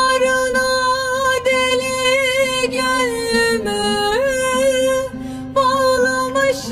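Background music: a sustained melody line holding notes and stepping between them, over a steady low drone.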